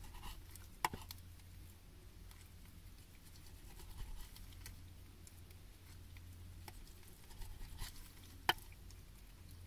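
Faint small clicks and taps from a black cat nibbling raw fish and a knife slicing sashimi on a paper cutting board, with two sharp clicks about a second in and near the end, over a low steady hum.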